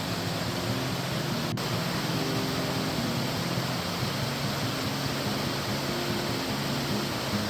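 Creek and small waterfall rushing steadily, an even hiss of moving water.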